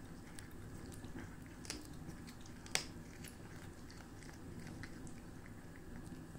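Cat chewing a fish head: irregular small crunching clicks, with one sharper crack a little under three seconds in.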